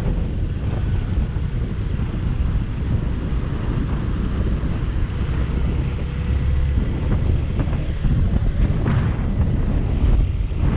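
Steady wind rush on the microphone of a moving motorcycle, with a low rumble underneath.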